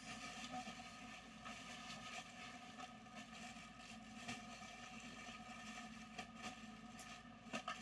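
Steady, faint mechanical hum made of several even tones, with a few soft clicks near the end.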